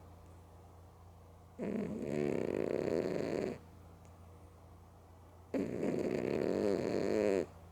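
Domestic cat snoring loudly in her sleep: two long snores of about two seconds each, roughly four seconds apart, with quiet breathing gaps between.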